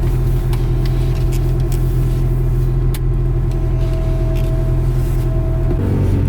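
1989 Honda Civic wagon's four-cylinder engine running at a steady pace, its note dropping a little near the end as the driver eases off or shifts.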